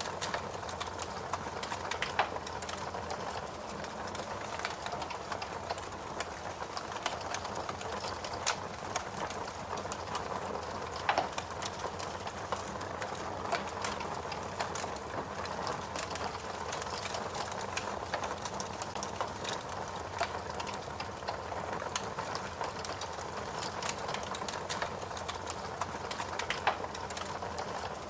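Wood fire crackling: a steady low rush of flame dotted with constant small pops, and a few louder snaps scattered through.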